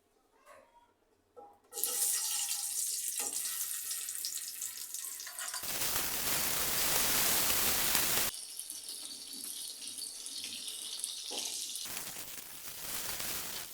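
Tap water running into a sink. It comes on suddenly about two seconds in, and the splash grows heavier and fuller for a few seconds in the middle and again near the end.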